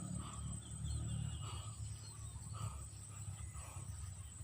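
Footsteps of someone walking on the ground, soft steps about once a second, over a low rumble on the microphone and a steady thin high hum.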